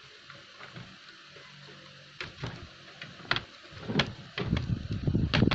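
Handling noise of a laptop being lifted and shifted on a plastic laptop cooling pad: a few sharp clicks and knocks from about two seconds in, then a denser run of rubbing and knocking that is loudest near the end. A faint low steady hum sits underneath the quiet opening.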